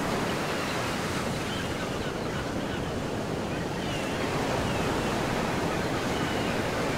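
Steady rushing ocean-surf sound effect, an even wash of water noise, with a few faint brief gliding tones above it.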